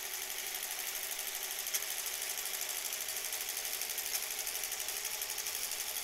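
Sewing machine stitching steadily at an even, rapid rate as fabric feeds under the presser foot, with one small click a little under two seconds in.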